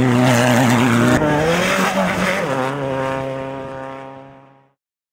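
Off-road race vehicle engines revving, wavering up and down in pitch. The sound then settles to one steady engine note that fades out to silence a little after four and a half seconds.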